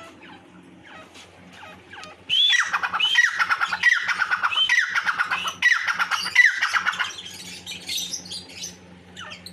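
Francolin (teetar) calling loudly: a run of about six ringing notes, each rising then falling, about two-thirds of a second apart, starting about two seconds in, followed by softer chirps.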